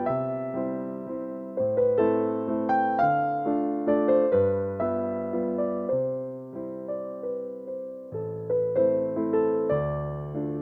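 Soft background music played on piano or electric piano: a slow, gentle melody over low held bass notes, each note struck and fading away.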